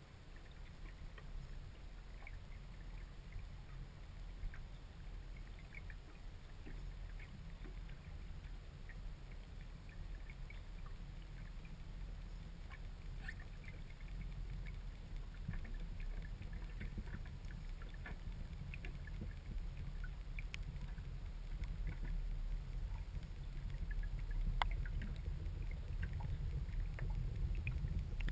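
Underwater sound picked up by a camera in a waterproof housing inside a baited net trap: a steady low rumble of water moving past, with scattered faint clicks, growing slowly louder as the trap is hauled up toward the surface.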